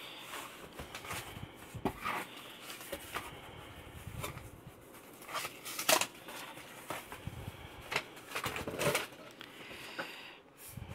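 Cardboard packaging being handled and opened by hand: irregular rustling and scraping of the corrugated box and paper packing, with a few sharper knocks, as a paperback book is pulled out.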